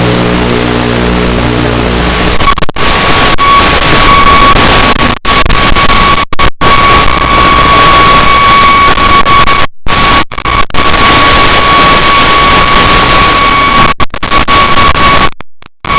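Loud static hiss from an analog FPV video receiver's audio channel, with a thin steady whine in it and several sudden brief cut-outs. For about the first two seconds a steady low hum of several tones plays instead, before the hiss takes over.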